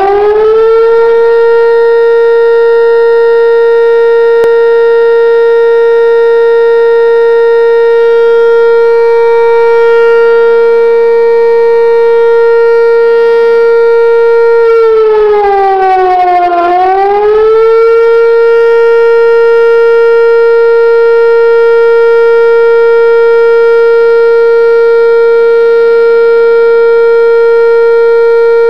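Tornado warning siren sounding a loud, steady wail as a tornado warning. It climbs to full pitch at the start, sags lower about halfway through, winds back up a couple of seconds later, and holds steady again.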